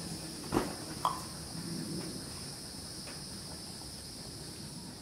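Steady high-pitched chorus of insects such as crickets, holding two even bands of sound. Near the start come two brief sharp sounds about half a second apart: a knock, then a short chirp-like click.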